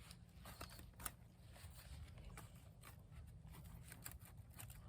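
Near silence: faint outdoor background with a low rumble and a few scattered soft ticks, one slightly louder about a second in.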